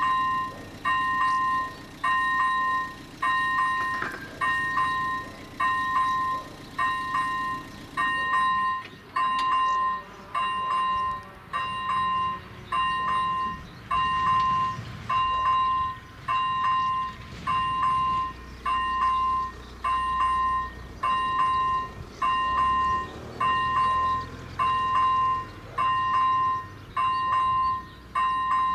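Electronic warning bell of an AŽD 97 level crossing, ringing at an even beat of about one stroke a second while the crossing is active and its barriers are lowered.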